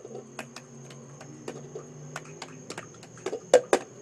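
Irregular light taps and knocks on a hard surface, with two loud sharp knocks close together near the end.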